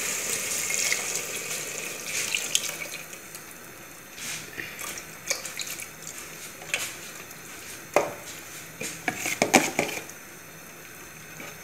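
Blended bread-and-milk mixture pouring from a plastic container into a pot of chicken and sauce base, a steady wet pour for the first few seconds. Then a spoon clinks and scrapes against the pot and container, with a few sharp knocks near the end.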